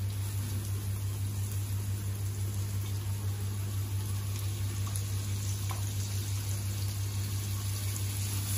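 Chopped onion sizzling in oil and butter in a stainless-steel kadhai as it is stirred with a silicone spatula, sautéing toward translucent, with a few light taps of the spatula. A steady low hum runs underneath.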